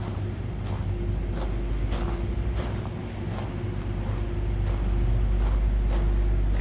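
A car engine running close by over a steady low traffic rumble, with a steady hum that grows louder after about five seconds, and footsteps on pavement about every two-thirds of a second.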